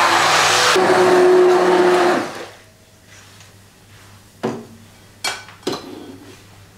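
Electric immersion blender running in a stainless steel pot, pureeing cooked chicken meat: a steady motor whine for about two seconds that stops abruptly. Three short knocks follow.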